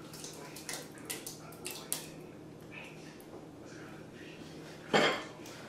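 Cooking utensil stirring tortellini in a pot, with several short clinks and scrapes against the pot, then a louder clatter of about half a second near the end.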